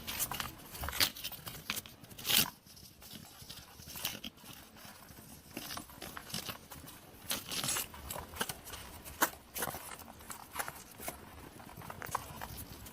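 Hedgehog making a run of short, irregular clicking noises, with louder ones about two and a half and nine seconds in.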